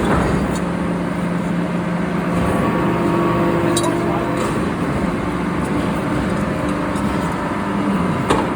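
Forging-shop machinery running steadily with a low hum, and a sharp metal clank about four seconds in and another near the end.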